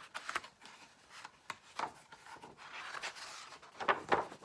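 Paper pages of a hardcover picture book being turned by hand, rustling, with several sharp crackles and flaps, two of them close together near the end.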